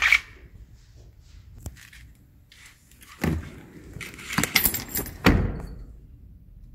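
Chevrolet Orlando rear seatback being worked through its recline positions: latch clicks and a short rattle, with two heavy clunks as the seatback drops into its notches, about three and five seconds in.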